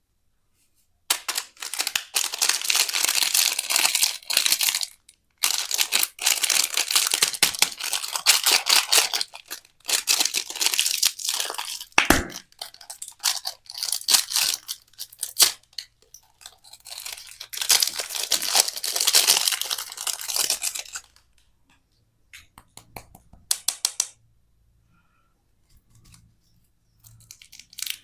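Candy wrapping being torn open and crinkled in several long crackling stretches, with a single sharp knock about twelve seconds in and a few scattered clicks near the end.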